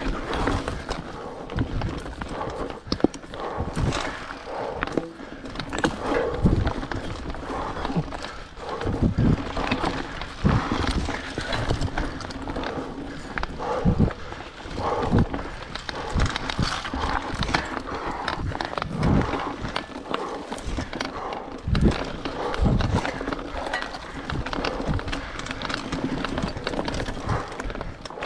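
Mountain bike ridden over a rough trail: a constant rattle and clatter with irregular knocks and thumps as it runs over bumps.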